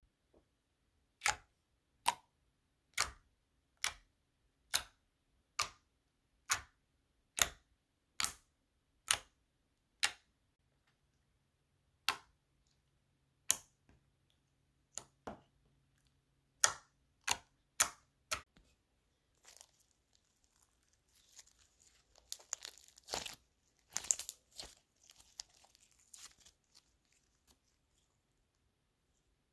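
Slime being pressed and poked, making short sharp clicks or pops about once a second, then a stretch of denser crackling and crinkling as it is worked.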